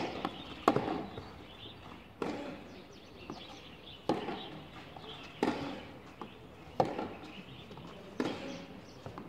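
Tennis balls struck by rackets in a baseline rally on a clay court: a sharp pop about every second and a half, the players hitting in turn, with fainter knocks in between.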